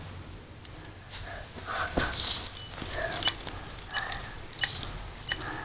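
Lego pneumatic one-cylinder engine running: sharp clicks from the valve and cylinder with short puffs of hissing exhaust air, irregularly about one to two a second, over a low steady hum.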